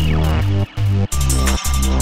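Electronic dance music with a heavy bass line. It cuts out briefly just past half a second, then a fast drum beat comes in about a second in.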